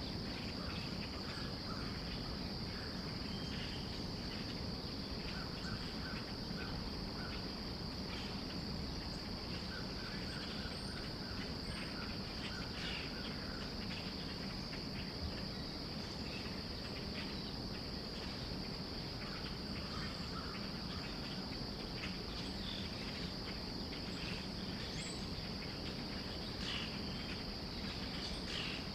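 Late-summer chorus of insects, crickets trilling as one steady high-pitched drone, with scattered faint bird chirps over a low, steady background noise.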